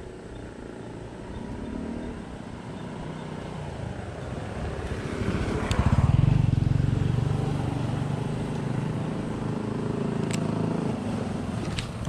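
A motor vehicle engine, most likely a small motorbike, passes close by. It grows louder to its peak about six seconds in, stays up for several seconds, then fades. Two short sharp clicks come over it, one mid-way and one near the end.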